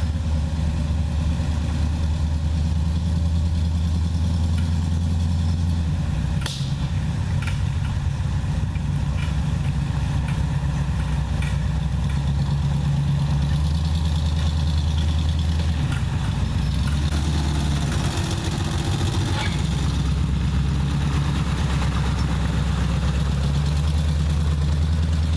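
4x4 wrecker's engine running at low trail speed while towing, its pitch shifting a few times with the throttle, with scattered sharp knocks and rattles from loosened camera mount extensions.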